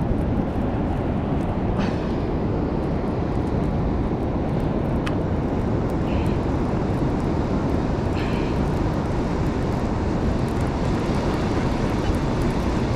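Steady wind rumble on the microphone over ocean surf, with a few faint clicks.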